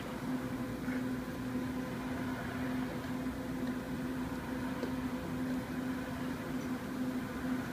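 Steady machine hum: a constant low tone over a faint even hiss, with a very faint tap about five seconds in.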